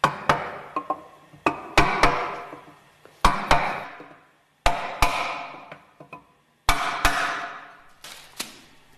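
Knocks on a wooden block used as a drift, seating the vibration absorber in the metal lower frame of a Westfalia OSD separator. About a dozen knocks, mostly in pairs a fraction of a second apart with pauses between, each ringing briefly in the frame.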